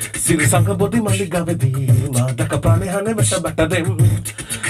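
Beatboxing into a handheld microphone: a fast, even rhythm of mouth-made kick, snare and hi-hat sounds with a pitched vocal line woven through it.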